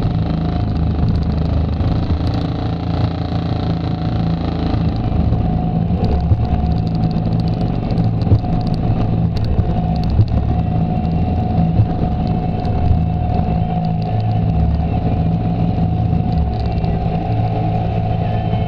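ATV engine idling steadily close by, with a few brief knocks.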